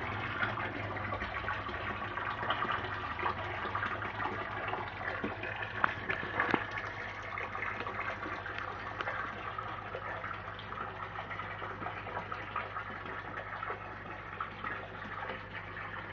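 Water splashing and bubbling in a koi fry pond, a steady crackling wash with a few louder splashes about six seconds in, over a low steady hum.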